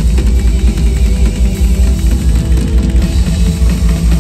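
Rock drum kit played live in a drum solo: rapid, dense drumming heavy in the low end, over a few held tones from accompanying music.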